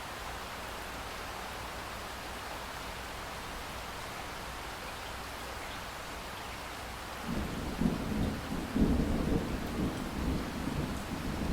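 Steady rainfall hiss; about seven seconds in a low rumble of thunder starts and rolls on, swelling and fading, over the rain.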